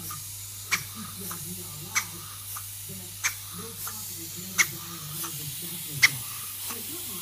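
Model beam engine running slowly on compressed air, a sharp click about every second and a quarter as it turns over.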